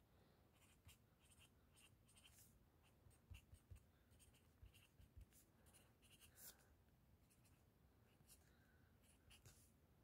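Faint, irregular short scratches of a felt-tip marker writing on notebook paper.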